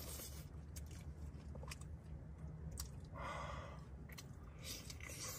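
A person chewing and biting into a braised pork chop close to the microphone: faint wet mouth sounds and small clicks, with a louder crunchy bite about three seconds in.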